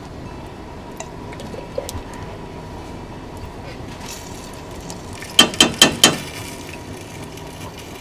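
A spatula scraping thick red chile sauce out of a glass jar into a steel pot, over a steady low hiss. Just past the middle come four sharp knocks in quick succession as the utensil and the jar tap together.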